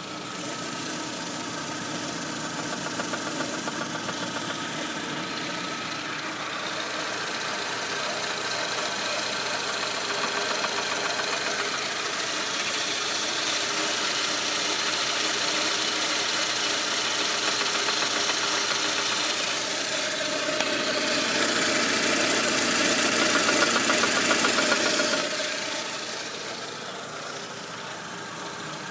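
VAZ-2110 1.6-litre eight-valve petrol engine running with a knock. It grows louder for a few seconds about 20 seconds in, then drops back near the end. The uploader found the knock to be camshaft axial play (end play).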